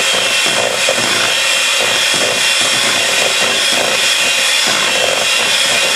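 Electric mixer running steadily with a high motor whine, its beaters whipping buttercream frosting of butter, powdered sugar and milk in a mixing bowl.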